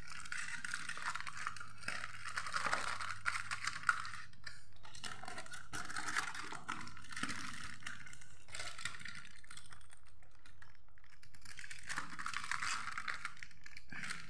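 Aluminium foil wrapping crinkling and crackling as hands open it out and pull a pizza slice free, coming and going in stretches of several seconds.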